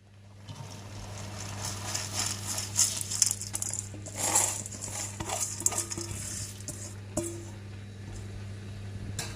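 Fried boondi being tipped and scraped into a pan of sugar syrup: a crackly rustling with scattered clinks of a spoon against the metal vessel, over a steady low hum.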